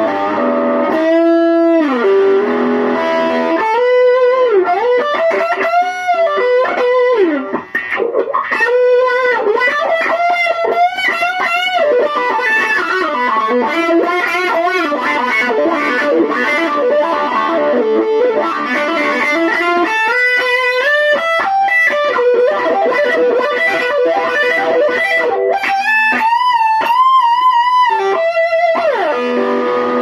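Electric blues lead guitar from a Donner DJP-1000 semi-hollow played through a Monoprice Stage Right 5-watt tube amp, with a Dumble-style amp simulator pedal breaking the amp up a little. A continuous run of single-note licks with many bent notes and wavering vibrato.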